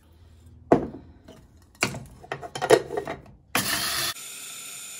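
Rolled oats being tipped into a small electric grinder: a knock about a second in, then a run of rattling clicks from the oats and container, then a short harsh burst of noise that cuts off suddenly, leaving a steady hum.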